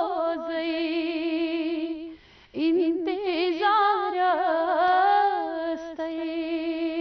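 A woman singing a Kashmiri naat (devotional song in praise of the Prophet), holding long notes with vibrato. The voice breaks off briefly about two seconds in. It comes back with a run of ornamented, wavering notes, then settles onto another long held note.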